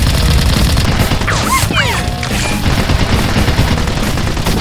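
Rapid-fire shooting sounds, a fast rattle of shots, over loud background music with a heavy low beat.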